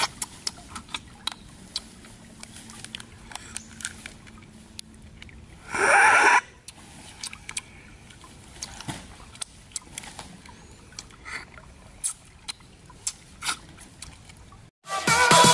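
Cooked crab shells cracking and crunching as they are pulled apart by hand and bitten, with irregular sharp clicks of shell and chewing. There is one louder half-second sound about six seconds in, and music starts near the end.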